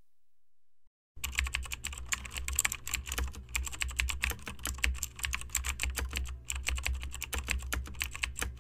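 Keyboard typing sound effect: rapid, irregular key clicks over a low hum, starting about a second in.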